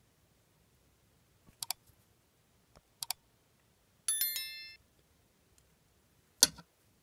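Subscribe-button animation sound effect: two quick double mouse clicks, then a bright bell chime that rings for about half a second. A louder single click or knock comes near the end.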